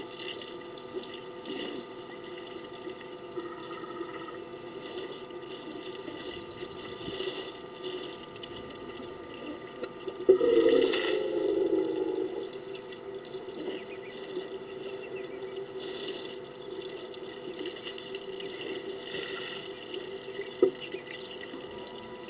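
Water splashing and dribbling as African elephants suck up water with their trunks and squirt it into their mouths, over a steady faint hum. About ten seconds in, a louder, lower noise lasts about two seconds.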